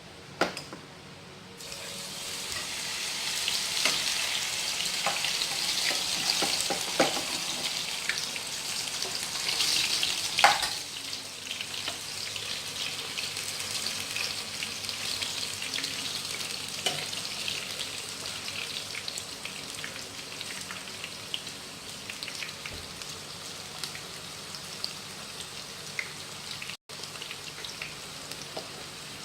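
Breadfruit slices deep-frying in hot oil: a crackling sizzle that swells about two seconds in as a fresh batch goes into the oil, then settles to a quieter, steady sizzle after about ten seconds, with a few sharp utensil clicks.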